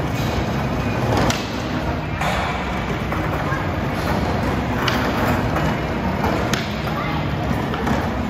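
Steady din of a busy indoor bumper-car hall, with electric spinning bumper cars running and voices in the background. A few sharp knocks stand out, spread through the stretch.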